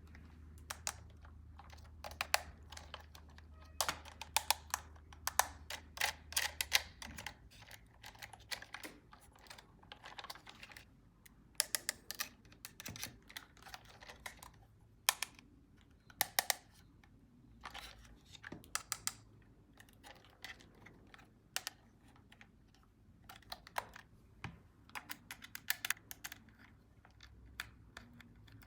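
Hard plastic being handled: many irregular light clicks and taps, often in quick clusters. A faint low hum stops about seven seconds in.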